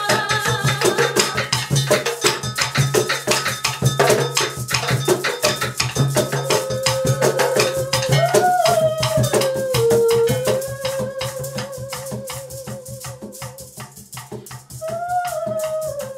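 Hand-percussion jam on djembe, cajón and rattles, with fast, dense strokes. About six seconds in, a held, wavering melodic note comes in over the rhythm. The playing grows quieter for a few seconds before picking up again near the end.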